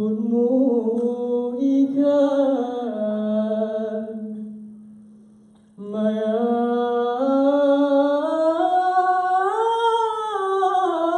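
A man's solo voice singing unaccompanied into a microphone in long, drawn-out, ornamented notes. There are two phrases with a brief break about five and a half seconds in; the second climbs in pitch and then settles lower near the end.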